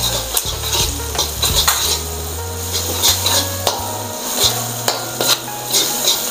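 Metal spatula scraping and knocking against a stainless steel wok, over and over, while onions and spice paste sizzle in hot oil. Background music with a steady bass plays underneath.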